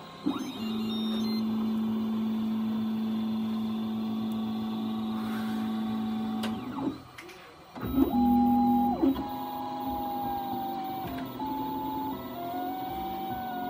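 MakerBot 3D printer's stepper motors whining as they drive the extruder carriage. One long steady tone lasts about six seconds, then comes a short pause and a louder move about eight seconds in. After that a string of shorter moves follows, their pitch stepping and gliding up and down.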